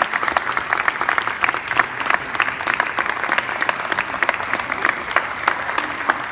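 An audience of dinner guests applauding at the end of a speech: dense, steady clapping from many hands.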